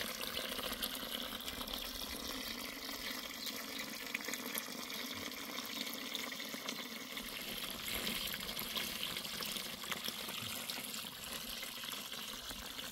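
Water running steadily, a continuous flowing hiss with fine splashy ticks.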